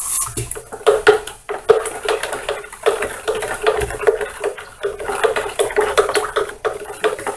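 A spoon clicking and scraping against the inside of a plastic jug, stirring washing powder into a mix of used cooking oil and hot water, with repeated irregular taps throughout.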